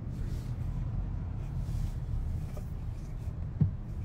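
Steady low rumble of a moving car heard from inside the cabin, with one short knock about three and a half seconds in.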